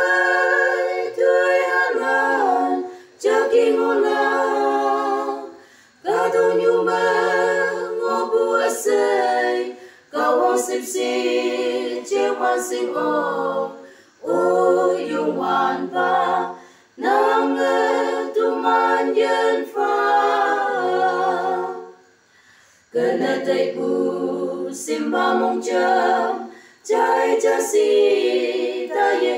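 Unaccompanied group of voices singing a song in the Konyak language in harmony. Phrases of a few seconds are held, with short breath pauses between them.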